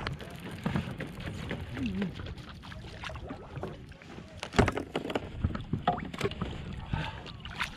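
Irregular knocks and clicks of a fishing rod, reel and gear being handled against a plastic kayak's hull, over a steady low rumble of wind and water, with one loud knock about four and a half seconds in.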